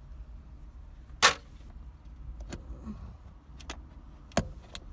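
Sharp clicks and knocks of shifter and console parts being handled and lifted out, the loudest about a second in and another near the end, over a low steady rumble.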